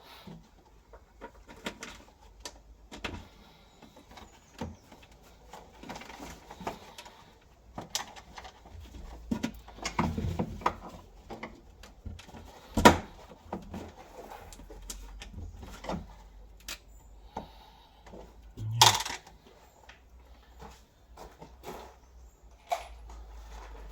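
Scattered metallic clinks, knocks and rattles of bolts, washers and hand tools being handled while bolting in a vehicle seat box, with a sharp loud knock about halfway through and a heavier thud later.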